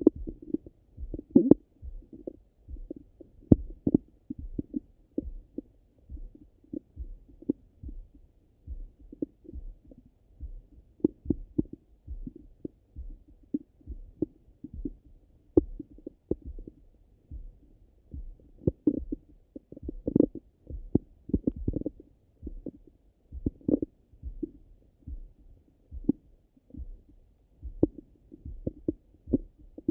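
Heartbeat heard through a stethoscope pressed on the belly: a steady run of muffled thumps, a little faster than one a second.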